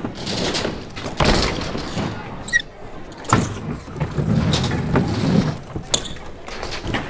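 BMX bike riding on concrete: tyres rolling with a steady rumble, and several sharp knocks and thuds as the wheels land and hit ramp edges, the clearest about a second in, just past three seconds, and near six seconds.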